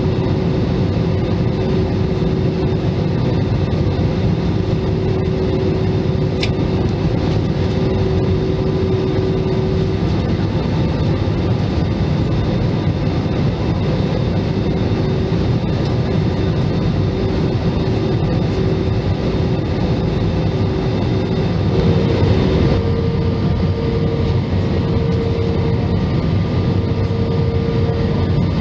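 Steady cabin noise of an Airbus A320-family jetliner on descent: a constant rush of air and jet engine drone. A humming tone steps to a slightly higher pitch about three-quarters of the way through, and there is one short click early on.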